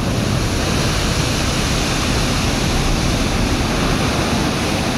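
Water from a steel deck barge's side launch into a river: a steady loud rush of falling spray and churning white water as the displaced river surges along the hull and washes back toward the bank.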